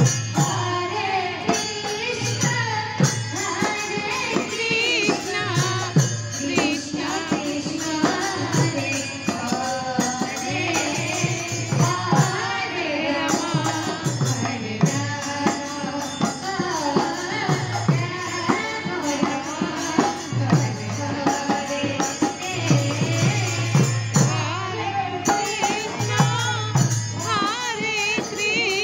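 Live devotional kirtan: barrel-shaped hand drums beat deep strokes about once a second under a group singing a wavering chant, with small hand cymbals jingling steadily throughout.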